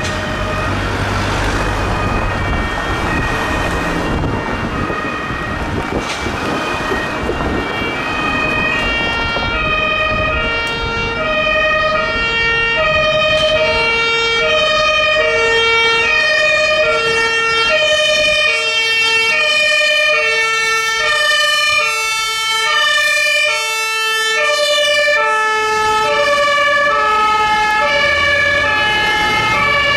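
German fire engine's two-tone Martinhorn sounding, alternating between a high and a low note about every three-quarters of a second, growing louder and clearer from about nine seconds in. Truck engine and road rumble underneath, strongest at the start.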